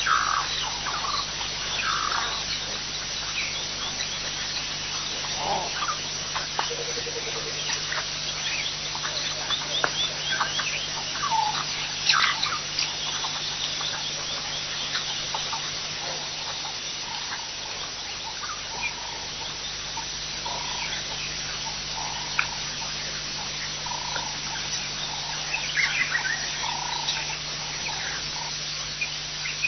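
Wild birds calling and chirping, short whistles, chirps and a brief trill scattered throughout, over a steady low hum.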